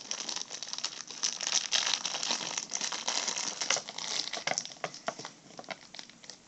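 Plastic packaging crinkling as it is handled, a dense run of small crackles and clicks that thins out near the end.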